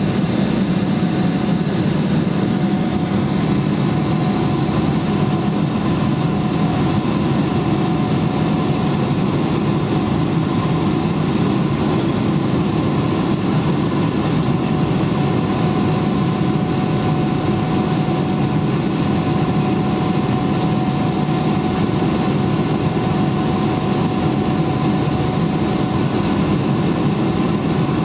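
Steady jet engine drone inside the cabin of a Boeing 777-300ER climbing after takeoff, from its GE90-115B turbofans, with a faint steady whine on top.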